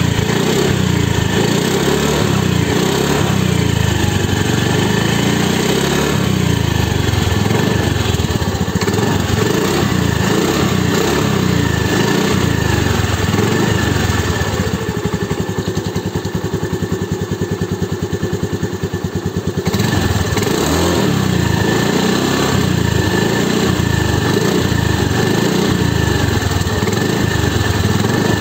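Honda Dio scooter's single-cylinder four-stroke engine running, heard at its original exhaust muffler. It goes quieter for about five seconds around the middle, then comes back up.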